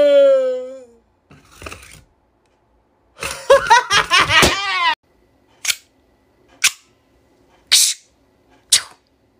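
A man wailing in exaggerated crying: a long wail that dies away in the first second, then a louder, wavering bout of sobbing wails from about three to five seconds in. It is followed by four short sharp clicks about a second apart.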